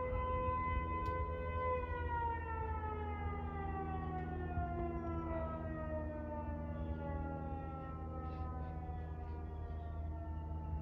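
Federal Signal Eclipse 8 electronic outdoor warning siren sounding its noon blast. It holds a steady tone, and about two seconds in the pitch begins to fall slowly and evenly as the siren winds down.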